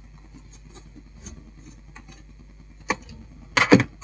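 Handling noise inside an opened satellite receiver: a faint steady hum, then a click about three seconds in and a couple of sharper knocks close together as hands work the cables and power-supply board.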